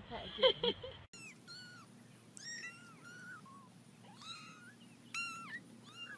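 A cat meowing repeatedly in short, high-pitched mews, about eight of them with gaps between. In the first second there are a few other brief sounds before an abrupt cut.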